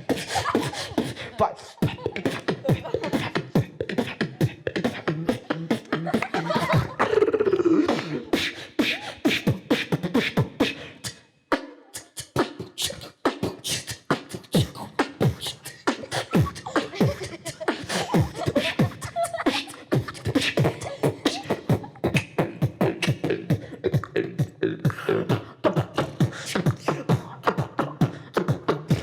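Beatboxing: rapid percussive mouth sounds in a steady rhythm, with a vocal tone gliding down about seven seconds in and a short pause about eleven seconds in.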